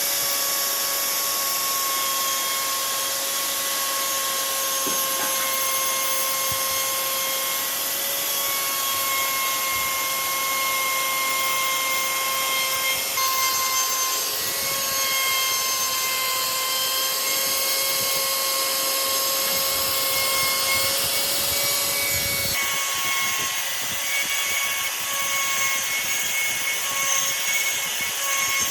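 A handheld electric power tool running steadily with a high whine while grinding or sanding wood; the pitch shifts briefly about two-thirds of the way through.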